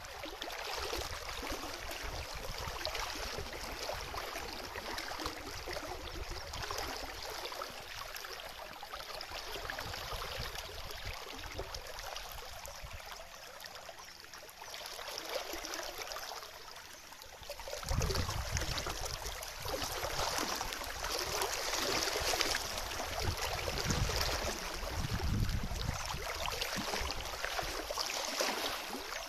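Moving water running and lapping, a steady noisy wash. About two-thirds of the way in it gets louder, with deep rumbles underneath.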